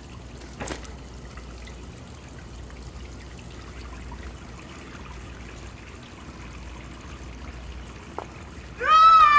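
A faint, steady hiss with a light click about a second in. Near the end a loud, high-pitched squeal rises in and holds.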